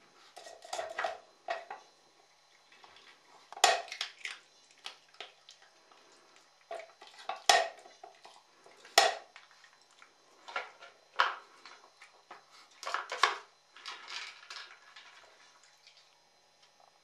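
Wooden dog puzzle toy clattering as a small dog works its sliding drawers and lids: irregular knocks and rattles of wood on wood, with four sharper knocks standing out.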